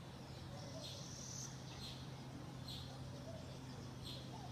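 Short high-pitched chirps repeating about once a second, with a longer, higher note around the first second, over a steady low hum.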